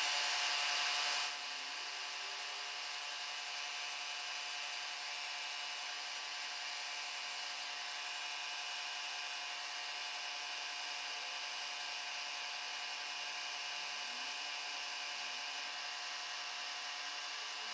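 Milling machine spindle running steadily with a whine while an end mill cuts brass in a conventional cut. There are a few short sliding tones near the end.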